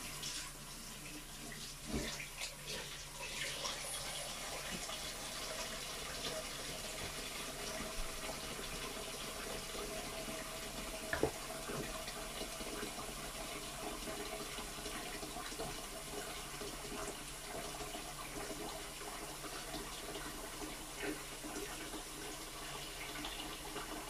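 Wooden spoon stirring a thin glutinous rice paste in a plastic basin: a steady, watery swishing with a few clicks of the spoon.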